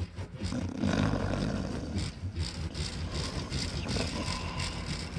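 A rag damp with lighter fluid scrubbing back and forth along a guitar's fretboard and frets to clean off grime, a rustling rub in quick strokes of about three a second, starting about half a second in.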